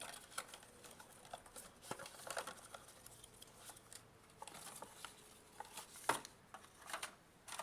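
Hands handling packaging: light rustling with scattered small clicks and taps, one sharper tap about six seconds in.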